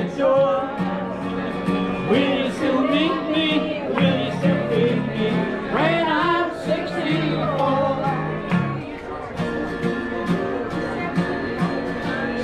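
Acoustic guitar played with a voice singing a country-style song.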